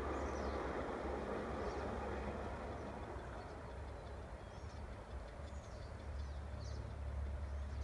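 A ride-on miniature train rolling away along the track, its running noise fading over the first few seconds, while birds chirp repeatedly.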